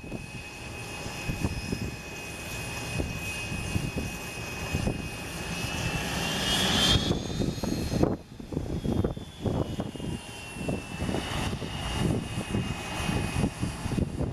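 Embraer ERJ regional jet taxiing past, its rear-mounted Rolls-Royce AE 3007 turbofans giving a steady high whine over a low rumble. The whine rises in pitch and loudness as the jet nears, peaks about seven seconds in, then slides down as it moves past.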